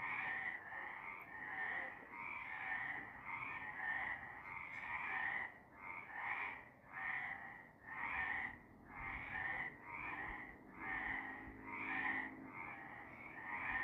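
Several frogs calling together in a chorus of overlapping croaks, repeating at roughly one and a half calls a second.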